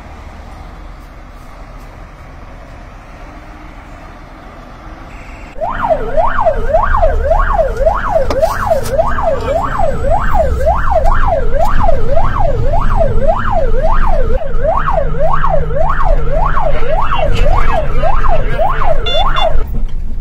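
Fire engine siren, heard from inside the cab, wailing up and down about twice a second. It starts about five and a half seconds in and stops shortly before the end. Under it and before it, the truck's engine runs with a low rumble.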